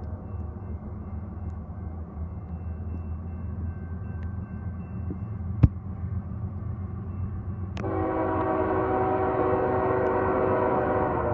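Low steady rumble, then about eight seconds in the air horn of Canadian Pacific ES44AC locomotive 8809, leading an approaching freight train, sounds a steady multi-note chord held to the end. A single sharp knock comes a little past halfway.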